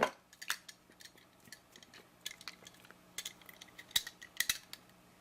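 Plastic shrink-wrap being torn and peeled off a phone box: irregular crackles and crinkles, loudest at the start and around four seconds in.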